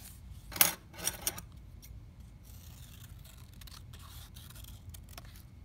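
Scissors cutting purple paper: a sharp snip about half a second in, a couple more soon after, then quieter cuts and paper rustling.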